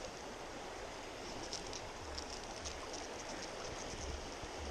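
Shallow river current rushing and babbling steadily over rocks, with brief brighter splashy flickers, and a low rumble about two seconds in and again near the end.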